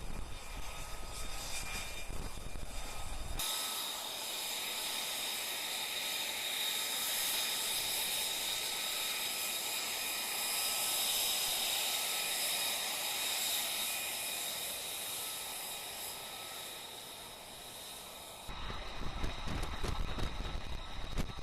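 Jet engine of an F-35B, its Pratt & Whitney F135: a high hiss with a steady whistling whine that cuts in about three seconds in, swells to its loudest near the middle and slowly fades. A low rumbling noise comes before it and cuts back in sharply near the end.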